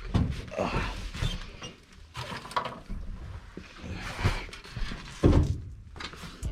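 Handling noises of someone reaching in and rummaging to pull out a piece of paper: scraping and rustling with scattered knocks, and a heavier thud about five seconds in.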